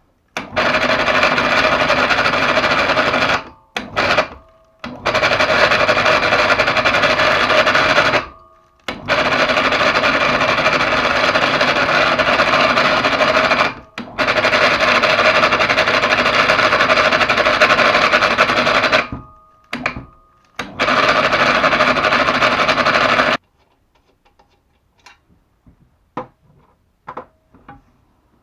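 PA 250/500 mini electric hoist motor running in repeated stretches of a few seconds, stopping and restarting, with the abnormal noise that is being diagnosed. The runs end about five seconds before the end, after which there are only faint clicks.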